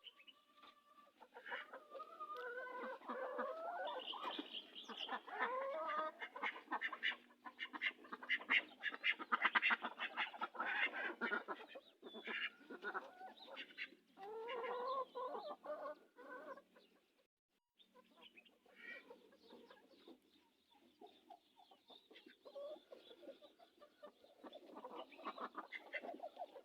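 Chickens clucking and calling, many short calls and rising squawks overlapping, busiest in the first half, breaking off briefly about two-thirds of the way in before quieter clucking resumes.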